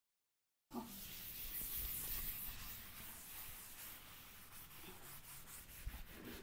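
Scrubbing sponge rubbing back and forth over glazed ceramic wall tiles, working grease buildup loose with a degreaser: a faint, steady scratchy rubbing that starts abruptly after dead silence, under a second in.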